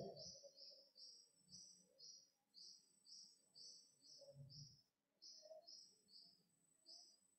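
Near silence with faint, high chirps repeated about three times a second, thinning out toward the end. A faint steady high whine comes and goes, and there are soft low thumps at the start and again after about four and a half seconds.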